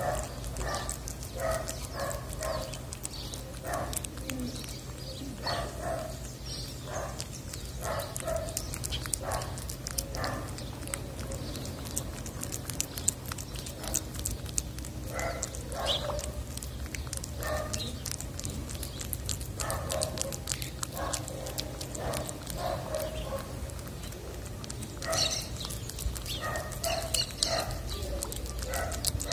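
Tabby cat eating wet cat food from a dish close to the microphone: irregular wet chewing and licking clicks, one or two a second. A steady low hum runs underneath.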